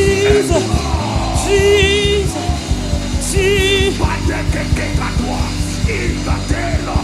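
Worship music with a steady beat, over which three long notes are held with vibrato.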